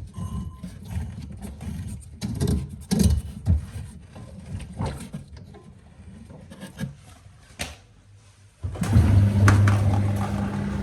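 Irregular knocks and clatter of the washing machine being handled. About nine seconds in, its motor switches on with a sudden steady hum.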